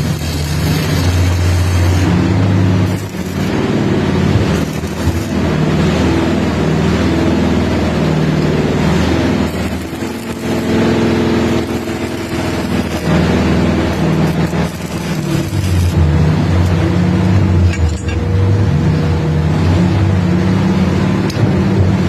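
Dump truck engine running, its speed rising and falling over about twenty seconds.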